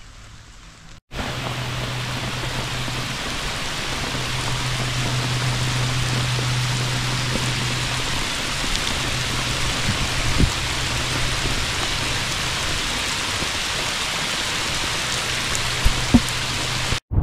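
Heavy rain pouring down on a lake and the trees along its shore, a dense steady hiss that starts abruptly about a second in, with a low steady hum underneath.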